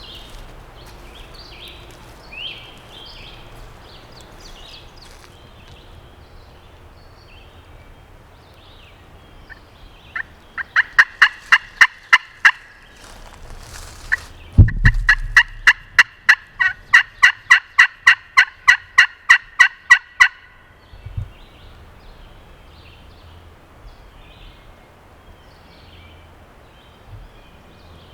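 Hen-turkey yelping on a turkey call: a short run of sharp, evenly spaced notes about ten seconds in, then a longer run of about twenty notes at roughly four a second. A loud thump comes where the second run starts, and faint songbird chirps are heard at the start.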